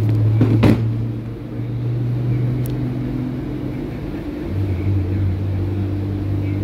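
A steady low mechanical hum that drops slightly in pitch about four seconds in, with a few short knocks in the first second.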